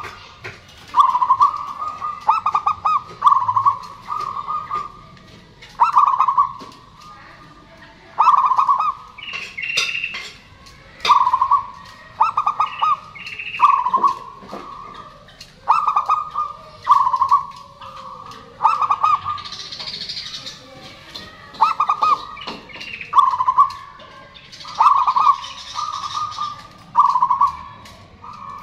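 Zebra dove (perkutut) cooing: short stuttering trilled coos on a steady pitch, repeated in phrases about every one to two seconds. Brief higher chirps come in now and then between the phrases.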